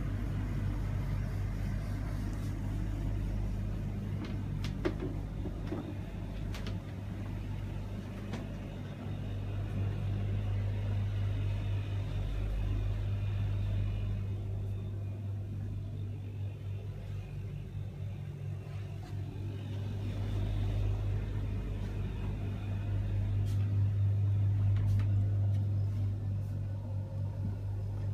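Steady low mechanical hum of machinery running aboard a motor yacht, swelling and easing slightly in loudness, with a few light knocks.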